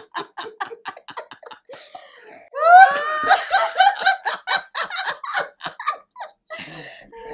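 Several women laughing heartily together in quick rhythmic bursts, with a loud, high-pitched whoop of laughter about two and a half seconds in.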